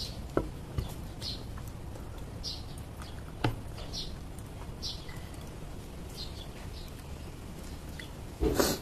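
Short high chirps repeating about once a second over a steady background hum, with a few soft clicks from hands handling raw vegetables on a plate, and one louder brief rustling clatter near the end.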